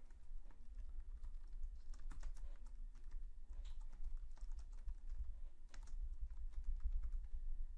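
Computer keyboard typing: quick, irregular key clicks as a short line of text is typed, over a steady low hum.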